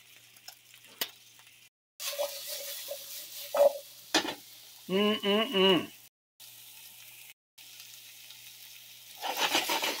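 Sliced carrots and celery frying in oil in a nonstick skillet: a sizzle that starts about two seconds in and gets louder near the end as sliced onions go in and are stirred. A brief wavering vocal sound comes about halfway through.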